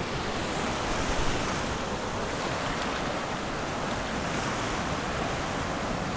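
Gulf surf washing in over a shallow beach, a steady rush of water, with wind buffeting the microphone in a low rumble.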